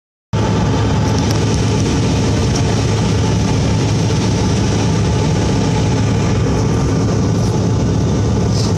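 Steady drone of a jet airliner in flight, heard from inside the cabin by a window: engine and airflow noise with a strong low hum, starting abruptly a moment in.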